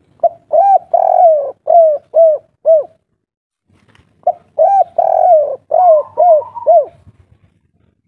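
Spotted dove cooing twice, each phrase an opening note and a longer drawn note followed by three short, evenly spaced notes: the 'kuk 3' song ending prized by Indonesian dove keepers.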